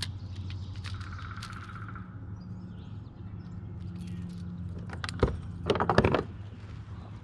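A hooked bass thrashing as it is unhooked beside the kayak, with a couple of loud bursts of splashing and knocking a little after five seconds in. A bird trills briefly about a second in.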